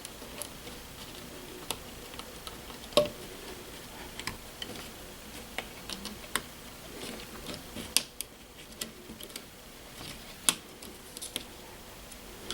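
Scattered small clicks and taps from thermostat wires being handled and pushed into the terminal connectors of a Nest thermostat base. The three sharpest clicks come about three, eight and ten and a half seconds in.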